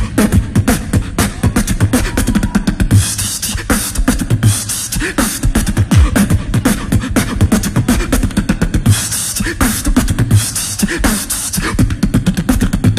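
Beatboxing through a loop station: a dense, fast beat of layered vocal kicks, snares and hi-hats that starts abruptly and keeps going, with hissing cymbal-like bursts every second or two.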